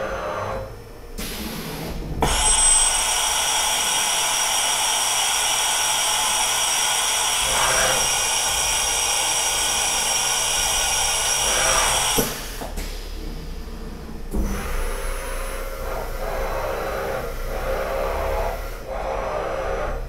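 Sharp SV-2412 CNC vertical machining center running during a tool change: a loud, steady hissing whir with high whines cuts off suddenly about twelve seconds in, followed by quieter, uneven machine noise.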